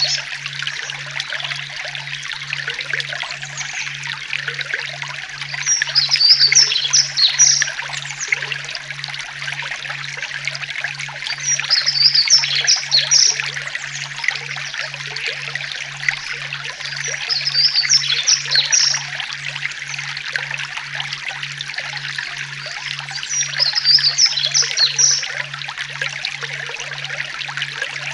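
Forest ambience: water trickling steadily, with a bird singing a short burst of chirps about every six seconds.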